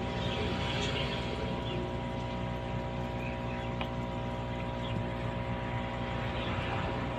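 Aquarium pump motor running with a steady electric hum and a faint hiss above it.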